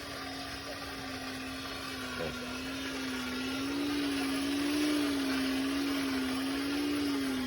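Hand-cranked blacksmith's forge blower whirring, a steady hum whose pitch wavers slowly up and down with the cranking.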